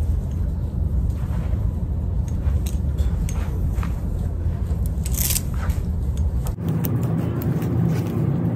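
Clothes hangers clicking and scraping as garments are pushed along a crowded clothing rack, with one longer scrape about five seconds in, over a steady low rumble whose character changes abruptly near the end.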